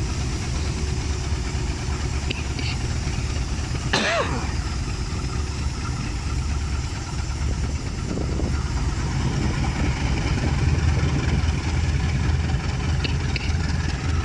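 Diesel locomotive engines running at a steady idle: a continuous low rumble. A car passes about eight seconds in, and a short call sounds about four seconds in.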